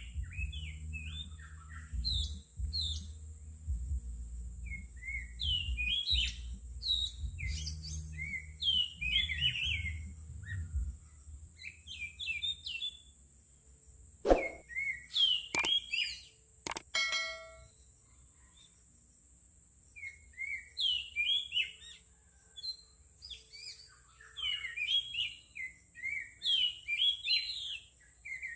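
Songbirds singing in repeated short phrases of quick chirps and twittering notes, over a steady high-pitched hiss. A low rumble sits under the first part, and a few sharp clicks come around the middle.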